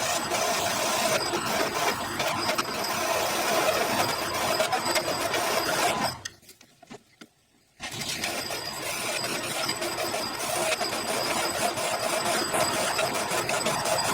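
Drill mill running, cutting a 50 mm hole in aluminium plate: a steady machine sound. It cuts out to near silence for about a second and a half about six seconds in, then carries on.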